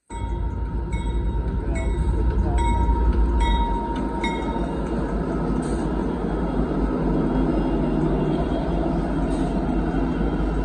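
Union Pacific diesel freight locomotives passing close by, a heavy low rumble of engines and wheels on the rails. A grade-crossing bell dings at an even pace for the first few seconds, then fades under the train noise.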